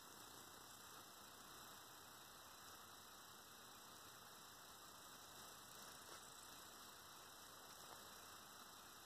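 Near silence: a steady, faint hiss of room tone, with a couple of faint ticks.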